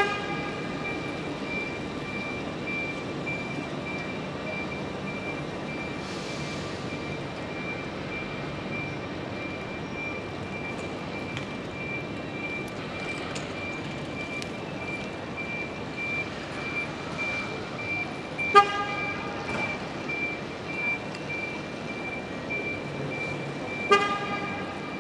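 Electric platform-assistance buggy's warning beeper sounding continuously as it drives along, a rapid, steady, high-pitched beeping. Its horn gives short toots three times: right at the start, about two-thirds of the way through, and near the end. The toots are the loudest sounds.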